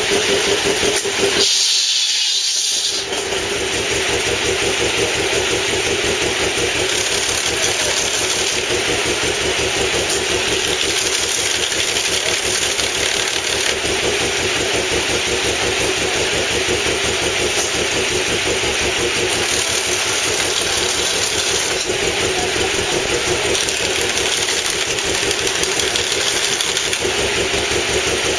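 Belt-driven shingle mill running steadily, its drive engine and belts keeping up an even, fast mechanical beat, with a short break in the sound about two seconds in.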